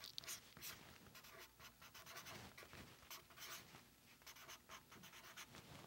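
Faint, short strokes of a Sharpie marker writing on paper.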